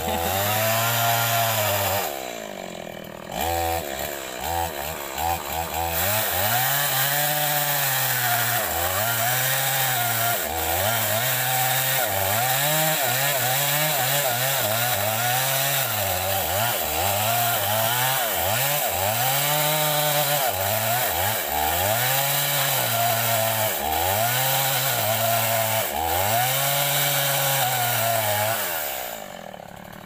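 Two-stroke chainsaw cutting into a large tree trunk. The engine pitch rises and falls over and over, about once every second and a half, as the throttle is worked in the cut, and it dies down near the end.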